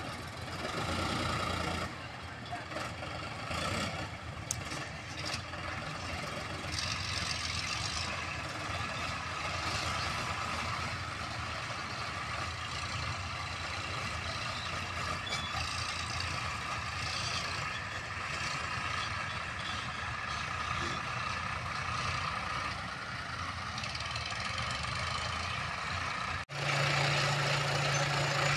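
Diesel tractor engines running as the tractors haul loaded trolleys over rough ground. Near the end the sound cuts to a Bobcat backhoe loader's diesel engine idling steadily and louder.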